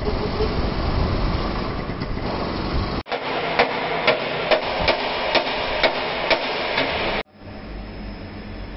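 A hand hammer strikes a steel truck chassis frame rail about eight times, roughly two blows a second, each with a short metallic ring, as the heated section is worked straight. Before the blows there is about three seconds of steady noise from the shop while the rail is heated with an induction heater, and at the end a quieter steady background noise.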